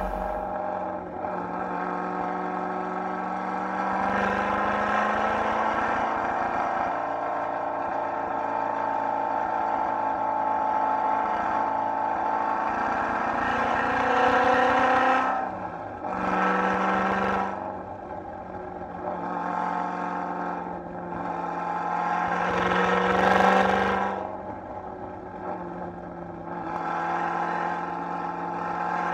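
Supercharged C5 Corvette V8 engine running under load on a winding road. Its pitch holds steady for long stretches, then rises and falls with the throttle, easing off briefly several times in the second half.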